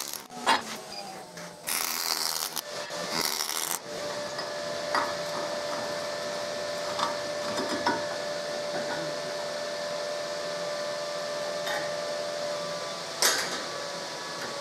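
MIG welding arc on stainless steel, hissing and crackling in short runs through the first four seconds and then stopping. After that there is a steady hum, with a few clicks and knocks of steel tools and a bench vise being worked.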